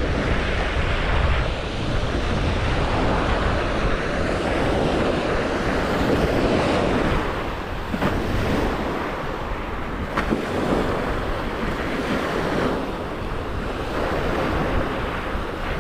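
Sea surf washing onto the beach in slow swells, with wind buffeting the microphone.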